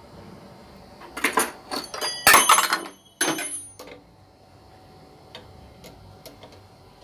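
Metal clatter: several sharp clanks of metal tools and parts knocking together, with a brief ringing, in a burst about a second in, followed by a few light ticks.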